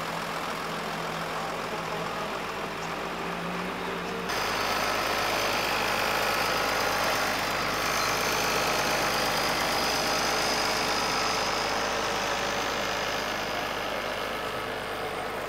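Engines of slow-moving parade vehicles, among them an International farm tractor, running at low speed with a steady hum. The sound changes abruptly about four seconds in and becomes louder.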